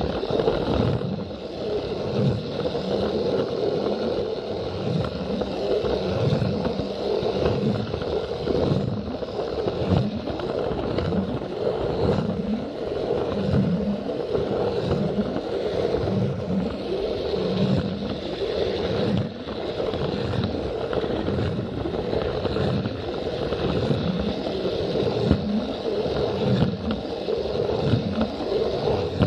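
Plarail battery-powered toy train running along plastic track, its small motor and gears whirring steadily, with repeated low clacks as the wheels cross the track joints.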